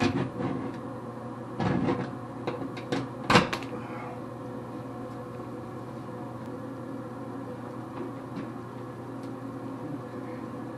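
A hand scraper chipping and scraping dried residue off a wall just below a row of tiles: a series of scrapes and knocks over the first few seconds, the loudest about three seconds in. A steady low room hum carries on underneath and is left alone after that.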